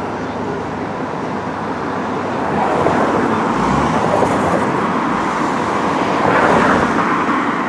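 Road traffic noise from vehicles driving past on the street, a steady rush that grows louder a few seconds in and peaks near the end.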